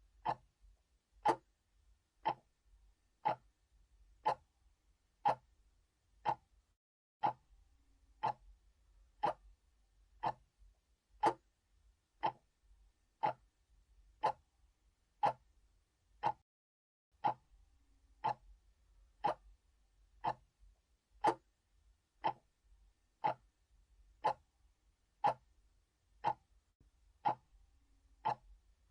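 Analog clock ticking steadily, one sharp tick a second.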